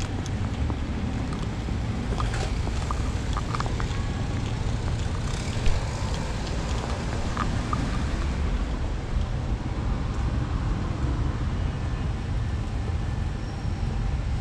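Wind buffeting the microphone in a steady low rumble over outdoor street ambience, with a few faint clicks and one sharper tick a little under six seconds in.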